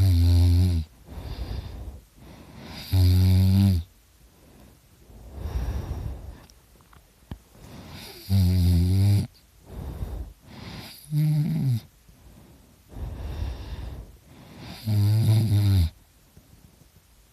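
A drunk man snoring really loud: five loud, pitched snores, each just under a second long, about every three seconds, with quieter breaths between them.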